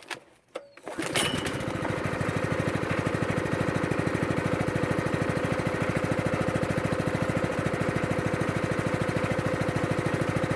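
Harbor Freight Predator 212 single-cylinder four-stroke engine, brand new, running steadily at idle with an even, rapid beat while being broken in. It comes in about a second in, after a few faint clicks.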